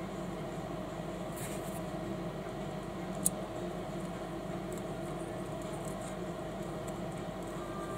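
Small plastic building bricks being handled and pressed together, with one sharp click about three seconds in and a few faint rustles, over a steady low background hum.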